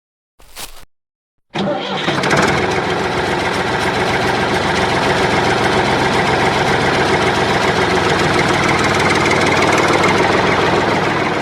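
A short burst, then an engine starts about a second and a half in and runs steadily with a fast, even firing patter.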